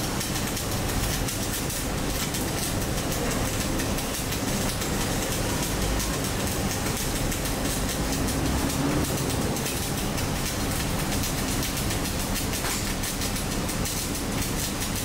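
Gas-shielded MIG welding arc crackling steadily as a bead is laid, without a break.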